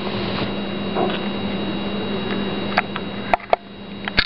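Steady electrical hum with a faint high tone over background hiss, broken by a few sharp clicks in the second half.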